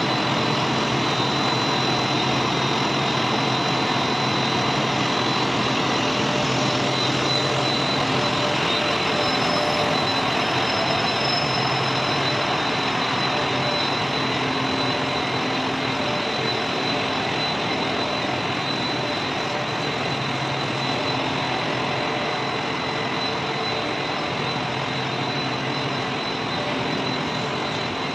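Polyethylene (EPE) foam sheet extrusion line running: steady machine noise with a thin high whine and a low hum, easing slightly toward the end.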